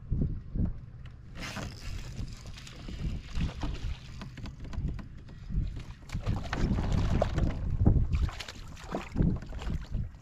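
Wind gusting on the microphone over water lapping and splashing around a fishing kayak. Near the end a hooked fish splashes at the surface beside the kayak.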